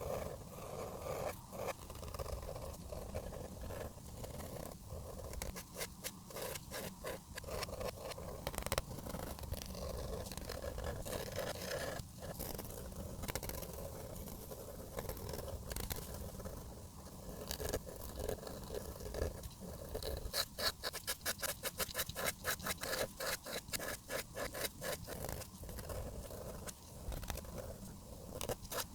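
Felt-tip marker strokes scraping across paper, with a quicker run of short back-and-forth colouring strokes in the second half.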